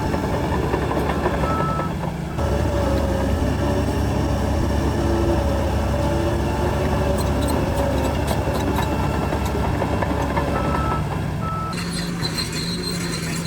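Heavy diesel earthmoving machinery running steadily under load, its sound changing abruptly twice, with a few brief high tones.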